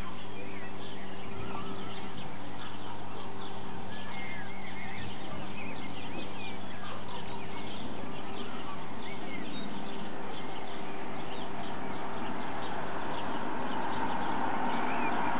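Birds chirping and calling over a steady low hum, with a broader noise swelling near the end.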